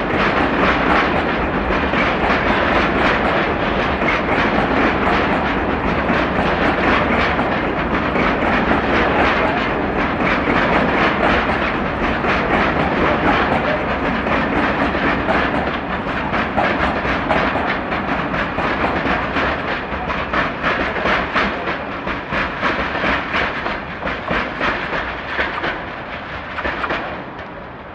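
Freight train of loaded Eas open wagons rolling past, wheels clattering rhythmically over rail joints. The sound fades over the last several seconds.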